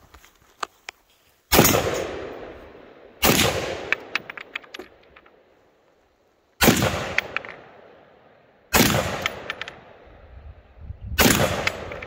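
Five rifle shots from a scoped AR-style carbine, a second and a half to three and a half seconds apart, each trailing off in a long echo, with a few light ticks after some of them.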